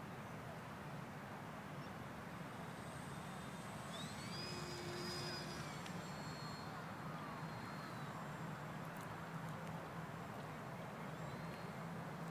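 Faint steady drone of a distant radio-controlled model plane's electric motor and propeller in flight, with a brief higher whine about four seconds in.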